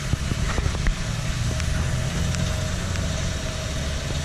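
Petrol dispenser pumping fuel into a car's tank: a steady low mechanical hum with a thin, steady whine over it and a few faint clicks.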